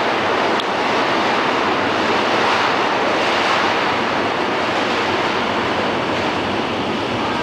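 Steady noise of a New York City subway train running away down the tunnel, wheels on rail.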